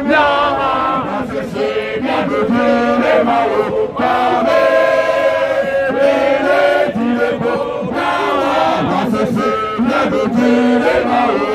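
A crowd of protesters chanting and singing together in unison, with held, sung notes.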